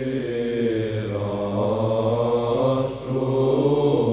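Eastern Orthodox liturgical chant: voices singing long held notes that shift in pitch about a second in, with a short break about three seconds in.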